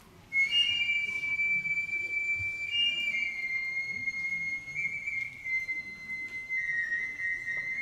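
A shinobue, the Japanese bamboo transverse flute of matsuri-bayashi, starts about half a second in and plays a slow solo line of long high held notes that step gradually down in pitch.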